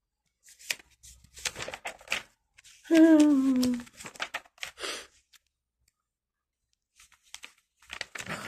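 Paper catalogue pages being turned and rustled in several short spells of crinkling. About three seconds in, a woman's voice gives a short hum that falls in pitch.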